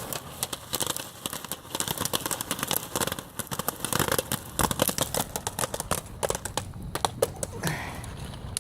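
Jiffy Pop popcorn popping inside its foil pan over a campfire: many rapid pops and crackles mixed with the foil crinkling as the pan is shaken. The pops thin out near the end as the batch finishes.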